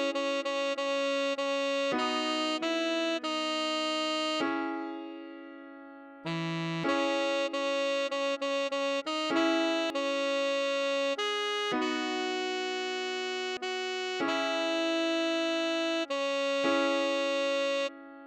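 A slow single-line melody played in a synthesized, keyboard-like instrument tone. Each note is held steady, with runs of quick repeated notes, longer held notes and a pause of about two seconds midway. It is the tutorial's half-speed practice playback.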